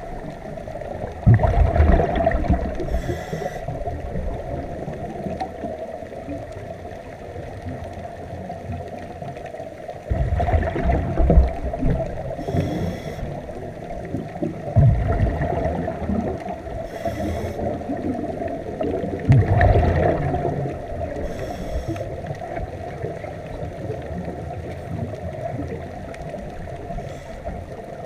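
Underwater sound of a scuba diver breathing through a regulator: bubbly, rumbling exhalations every few seconds with faint hissing inhalations between them, over a steady underwater hum.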